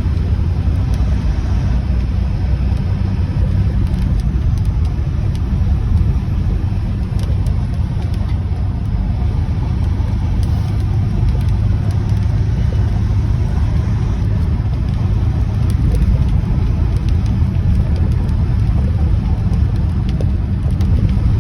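A car driving at road speed: a steady low rumble of engine and tyres on the road.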